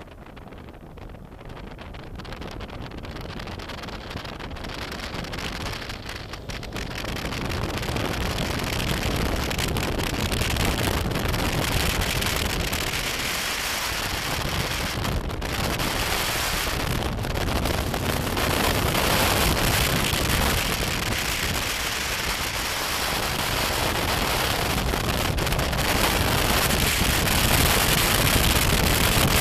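Wind rushing over the microphone of a BMW F800GS motorcycle on the move, with the bike running beneath it; the noise grows louder over the first eight seconds or so and then holds steady.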